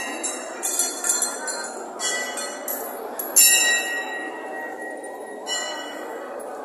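Metal temple bells struck about six times at irregular intervals, each strike ringing on with a clear metallic tone, over the murmur of a crowd.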